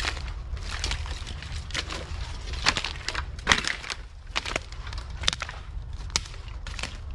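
Footsteps crunching through dry fallen bamboo canes and dead leaves, with irregular snaps and cracks of breaking stalks, over a low steady rumble.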